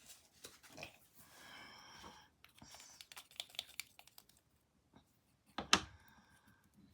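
Light clicking and tapping of painting tools and paint containers on a work surface, with a few short squeaky sounds and one louder knock a little before six seconds in.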